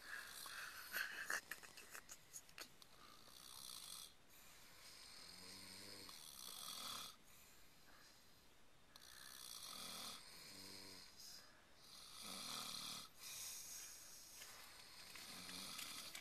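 Several people snoring in a tent: faint, overlapping snores that swell and fade with each breath every few seconds. A few light clicks and rustles come in the first two seconds.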